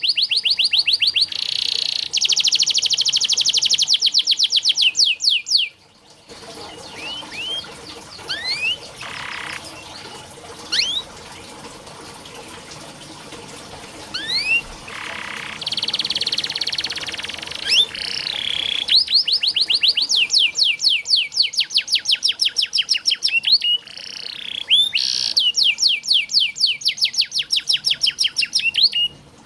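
Domestic canary singing: long, fast trills of rapidly repeated high notes, then a quieter stretch of scattered single rising chirps and a short buzzy trill, then fast trills again.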